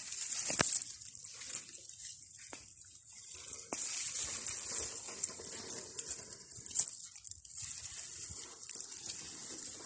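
Rustling of leafy peanut plants and grass as they are grabbed and pulled up by hand out of the soil, with a few short clicks.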